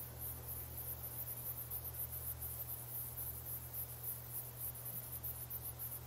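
Faint background ambience: a high, rapidly pulsing, insect-like chirring over a low steady hum.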